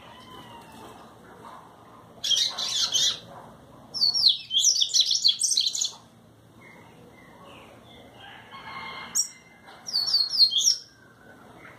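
A papa-capim seedeater (Sporophila) singing its 'trovão' song: three bursts of fast, high-pitched repeated notes, the last near the end, with quieter chirps between them.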